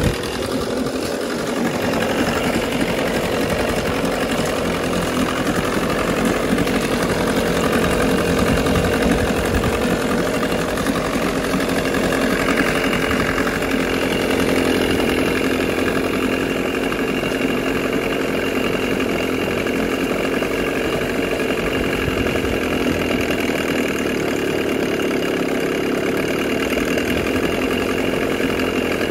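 1985 Evinrude 5 hp two-stroke outboard engine running steadily with its cowling off.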